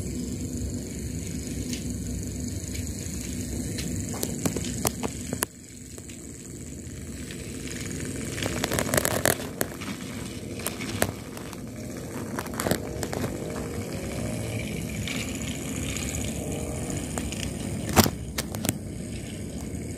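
Battery-powered Railking toy train running on its track on a nearly flat battery: a steady running rumble with wheel rattles and clicks as the locomotive and carriages roll close past. The rattling is densest about eight to ten seconds in, and there is a sharp click near the end.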